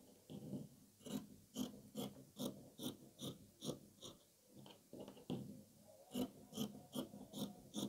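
Scissors snipping through T-shirt fabric in a steady run of short cuts, about two a second, with a brief pause midway.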